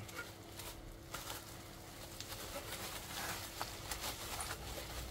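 Plastic bubble wrap rustling and crinkling as hands fold it around a boxy object, with a scatter of faint crackles.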